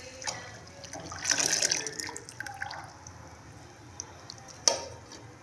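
Milk being poured into a steel cooking pot, splashing most loudly about a second in, then quieter. A single sharp knock near the end.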